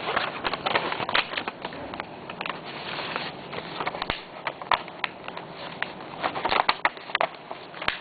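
A sheet of A4 paper, already folded many times, being folded in half and creased by hand: irregular crackling and rustling of the stiff paper.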